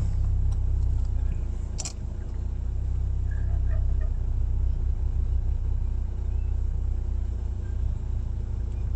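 Lada Niva engine idling with a steady low rumble; a single sharp knock about two seconds in.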